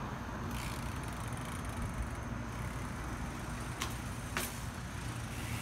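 Steady road traffic rumble, with two sharp clicks from a BMX bike about four seconds in, as the rider hops it through a 180 onto the curb.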